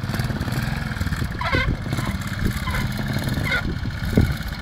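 Trials motorcycle engine running at low revs with small throttle blips as the bike is ridden slowly over rocks. A couple of short higher-pitched calls sound over it, about a second and a half in and again near the end.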